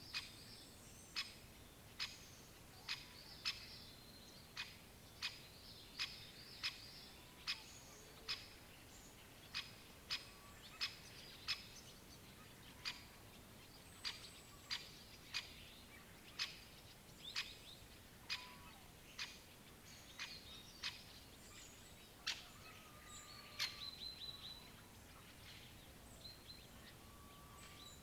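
Great spotted woodpecker giving sharp, single 'kik' calls, repeated about once a second over a steady hiss of background noise. Late on there is a brief rapid run of high ticks.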